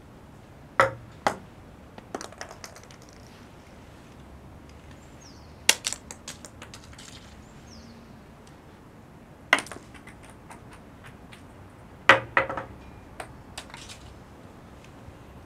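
Acorns dropping one at a time onto stone paving: four sharp clicks a few seconds apart, each followed by a run of smaller clicks as the acorn bounces and rattles to rest.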